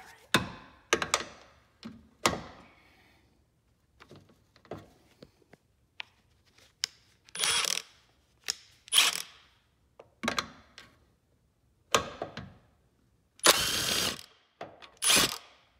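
Milwaukee cordless impact wrench fired in a string of short bursts, each under a second, loosening the bolts that hold a Jeep's rock rail; the longest burst comes near the end.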